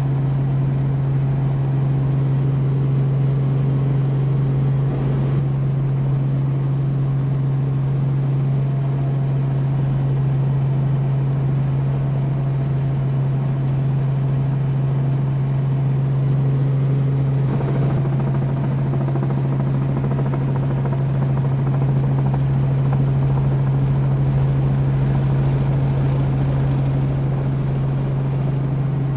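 Robinson R44 Raven II helicopter's rotors and six-cylinder Lycoming engine running steadily while hover-taxiing, heard from inside the cabin: a constant deep hum with a steady rotor beat and no change in pitch.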